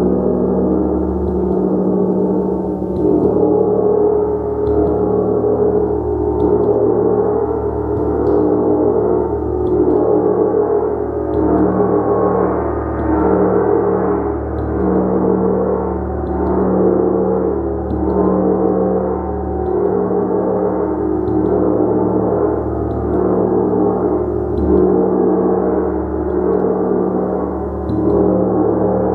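A gong played continuously with a mallet. Its dense wash of ringing overtones swells and ebbs in a steady rhythm, about once every two seconds.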